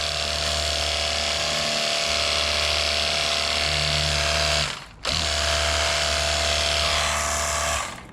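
Jet Hawk cordless pressure washer's electric pump running as it sprays water. It cuts out briefly about five seconds in, starts again, and stops near the end.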